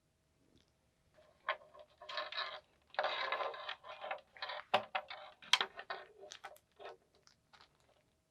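Rustling and scraping from handling replacement headphone earpads and their packaging, with several sharp clicks partway through.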